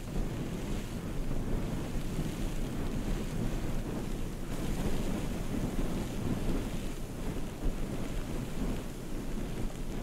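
Snowstorm wind blowing and buffeting the microphone: a steady, low rumbling noise that swells and eases.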